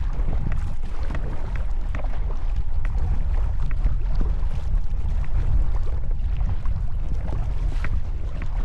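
Strong wind buffeting the microphone in a steady low rumble, with faint, irregular splashes of a paddle working choppy lake water.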